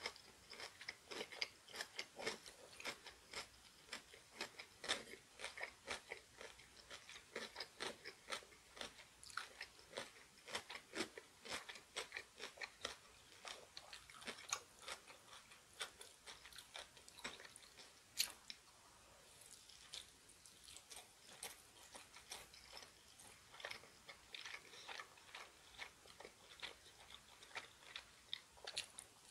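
Close-miked chewing of a mouthful of food: a steady run of small, quick wet crunches and mouth clicks, with one sharper crack about two-thirds of the way through.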